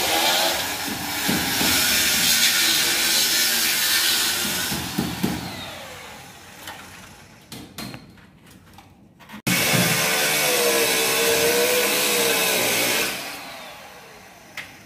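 Handheld electric power tool cutting overhead, run in two long bursts: it runs about five seconds and winds down, a few clicks follow, then it starts abruptly about nine and a half seconds in and runs three or four seconds before winding down again.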